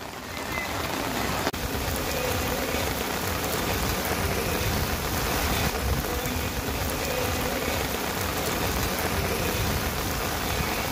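Heavy downpour of rain pelting wet pavement, a steady hiss that swells about half a second in, with one brief click a second and a half in.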